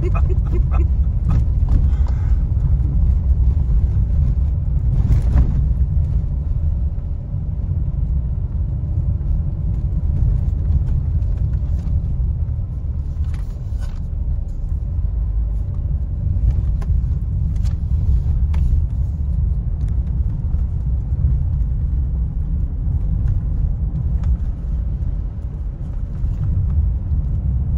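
Car driving on a rough, patched road, heard from inside the cabin: a steady low rumble of tyres and running gear, with a few brief knocks scattered through.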